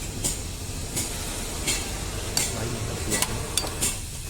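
A wrench tightening the 10 mm bolts on a manual gearbox's gear-changer housing, giving short metallic rasps or clicks roughly every half second to second over a low steady hum.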